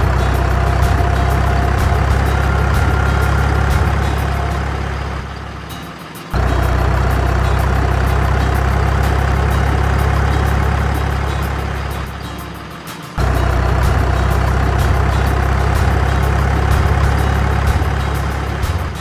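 Truck engine sound running steadily in repeated stretches of about seven seconds, each cutting in abruptly and fading out before the next, the pattern of an engine sound effect laid over toy trucks.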